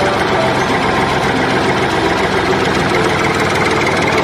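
Steady engine-like running sound, like an idling motor, at an even level with no breaks.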